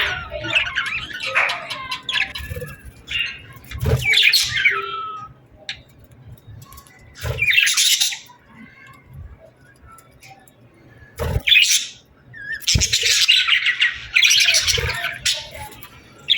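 Birds chirping and squawking in bursts of a second or two, with short quiet gaps between them; the longest and loudest stretch comes near the end.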